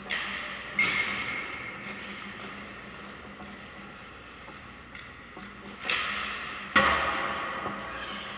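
Ice hockey practice: about four sharp knocks of sticks hitting pucks and pucks striking the boards, each echoing for a second or so in the rink, the loudest one near the end.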